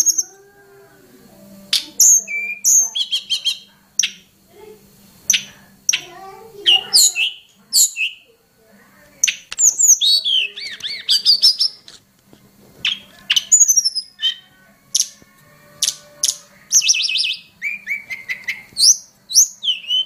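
Hill blue flycatcher calling and singing: a varied string of sharp high chirps, whistles and short, fast trills, many notes sweeping down in pitch, with denser runs of rapid notes around the middle and near the end.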